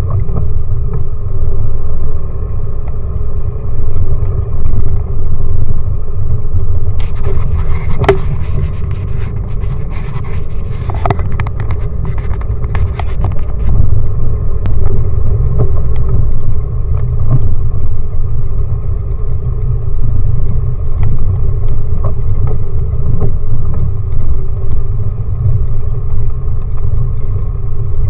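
Off-road 4x4 vehicle driving over rough ground, a loud steady low engine and drivetrain rumble, with a run of sharp knocks and rattles from about seven to fourteen seconds in.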